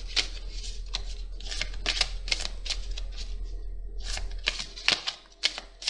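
A deck of oracle cards being shuffled by hand: quick papery slaps of the cards, about three or four a second, with a short pause a little past halfway.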